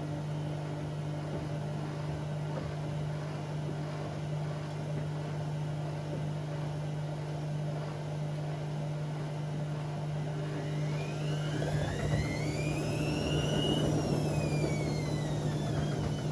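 Bauknecht WA Aquaton 1400 front-loading washing machine running a cottons wash with a steady low hum. About two-thirds of the way in, the drum motor's whine rises in pitch, peaks and falls again as the drum speeds up and slows.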